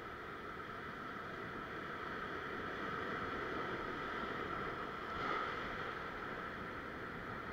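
Ocean surf washing and breaking over a rock ledge: a steady rush of water that swells, with one louder wave breaking about five seconds in.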